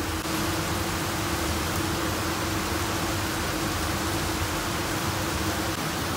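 Steady cabin noise inside an INKA-built economy-class train coach: an even hiss with a low hum and a constant mid-pitched tone.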